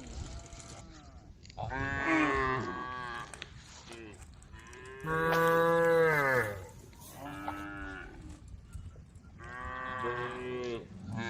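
Cattle mooing, calling to the herd: four calls, the third a short one, with the loudest about five seconds in, its pitch dropping at the end.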